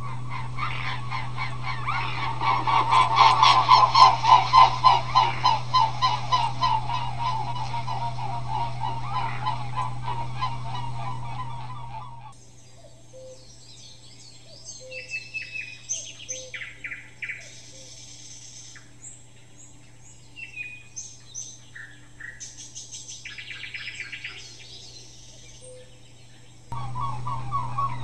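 Birds calling: a dense run of rapid, repeated calls for about the first twelve seconds, which cuts off suddenly. Scattered short chirps follow, and the dense calling returns suddenly near the end.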